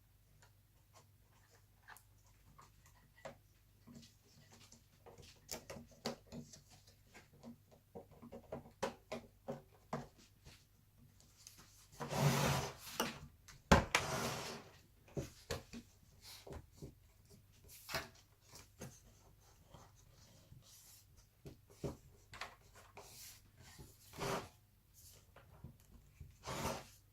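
Scattered small clicks, taps and rubbing of laptop parts being handled and pressed into place while the power button switch is fitted into an Alienware M17x R2. About halfway through comes a louder stretch of rubbing with one sharp knock.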